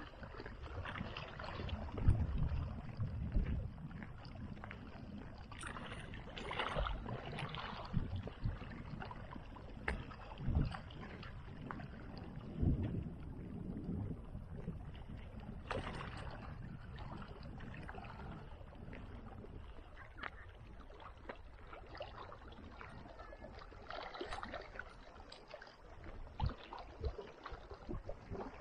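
Wind buffeting an action camera's microphone in irregular gusts, a low rumble that swells and fades, with a few stronger gusts along the way.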